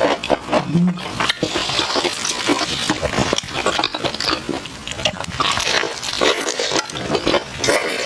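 Close-miked chewing of crispy fried banana in a glutinous rice coating: a dense, continuous run of crunches and wet mouth sounds.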